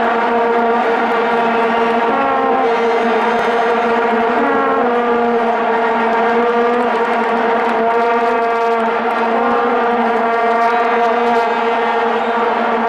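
Massed vuvuzelas blown by a stadium crowd: a loud, unbroken drone on one low note, with single horns now and then sliding off pitch above it.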